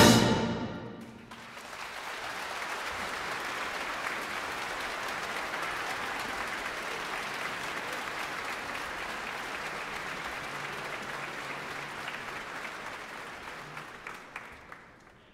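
A military brass band's final chord cuts off and rings away in a large concert hall within the first second. The audience then applauds steadily, and the applause fades out near the end.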